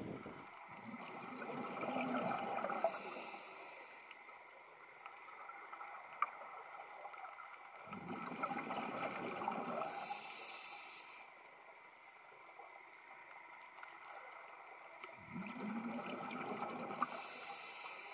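Scuba diver breathing through a regulator, heard underwater: a low rumbling gurgle of exhaled bubbles comes three times, about every seven seconds, and each is followed by a short high hiss.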